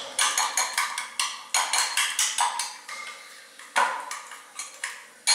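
Spoon beating eggs in a glass bowl, metal clinking against glass in quick strokes about four a second, thinning out to a few strokes near the end.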